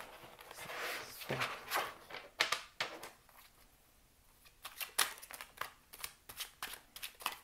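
A new tarot deck being shuffled by hand, overhand style: cards rustling and sliding against each other, a short lull midway, then a quick run of crisp card clicks as the packets are dropped together.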